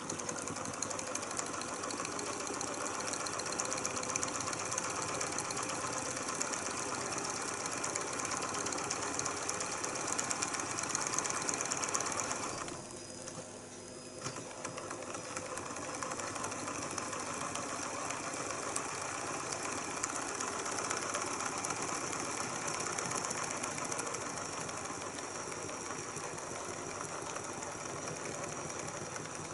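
Small BangGood hot-air Stirling engine with a vertical crankshaft running fast: a steady rapid mechanical rattle from its spinning flywheel, gears and linkages. The rattle falls away briefly about halfway through, then picks up again.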